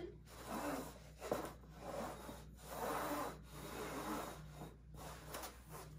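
German Shepherd sniffing and breathing through her nose as she searches the upturned cups for a hidden ball, one noisy breath about once a second, with a few faint clicks.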